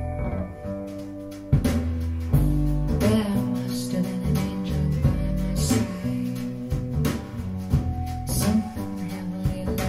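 A live pop-jazz song played back over hi-fi speakers, carried by deep plucked bass notes and guitar, with sharp percussive hits that come in about one and a half seconds in.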